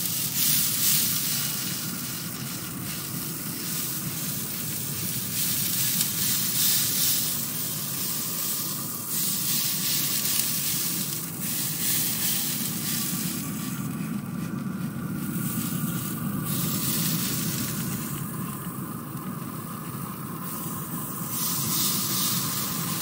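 Trigger spray bottle misting apple juice over pork butts on a hot pellet grill. Stretches of hissing spray start and stop several times over a steady low hum.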